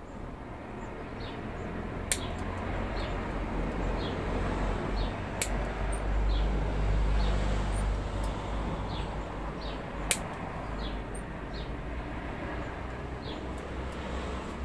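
A motor vehicle passing, its rumble and low hum swelling to a peak about halfway through and then easing off. Small birds chirp repeatedly, and there are three sharp clicks.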